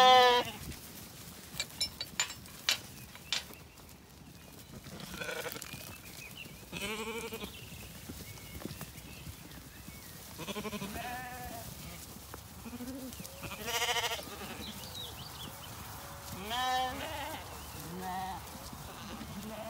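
Zwartbles sheep and lambs bleating as the flock moves off, a wavering call every few seconds, the loudest about two-thirds of the way through. A few sharp knocks sound about two to three seconds in.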